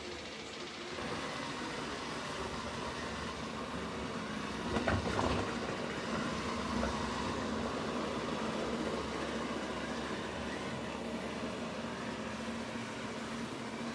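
Roborock S7 Plus robot vacuum running: a steady motor-and-fan noise with a constant low hum, swelling briefly about five seconds in.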